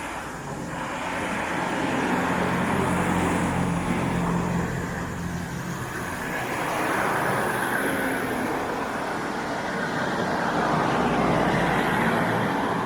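Road traffic: cars passing one after another, engine and tyre noise swelling and easing off about three times.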